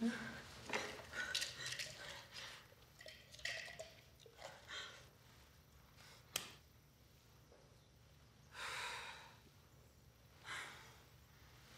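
A woman breathing heavily in short gasps and sighs. About six seconds in comes a single sharp click from a cigarette lighter, then long drawn breaths in and out as she smokes.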